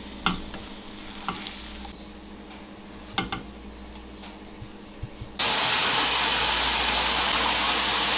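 A few light kitchen clicks and knocks, then about five seconds in a loud, steady sizzle starts suddenly, as of food frying in a hot pan.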